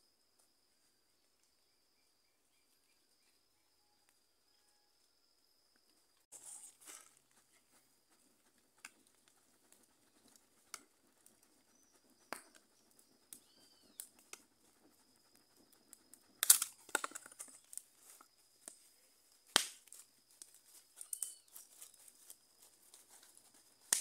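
A piece of tree bark swished back and forth to fan a small smoky wood fire, with rustling and scattered crackles and sharp snaps; the loudest snaps come about two-thirds of the way through. For the first six seconds there is only a faint steady high whine.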